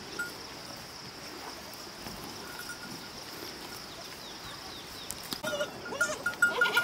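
Steady outdoor background hiss with a few faint bird chirps, then from about five seconds in a herd of goats bleating, with bells jingling, getting loud near the end.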